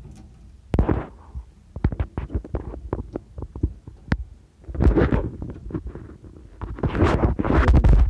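Close-up handling noise of fingers and a small flathead screwdriver working at a filing cabinet lock against the phone: a run of small clicks and taps, then two louder bouts of scratchy rubbing about five seconds in and near the end.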